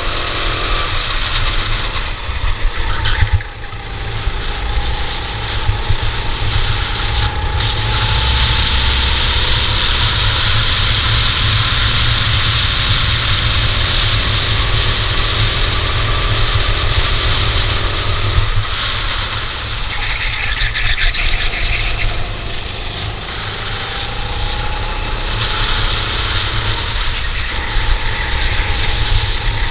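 Racing kart engine running hard through a lap: its pitch climbs slowly for several seconds at a time, then drops back off a few times, over a heavy low rumble.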